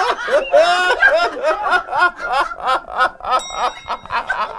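A man laughing hard in a long run of rhythmic 'ha-ha-ha' bursts, about three a second.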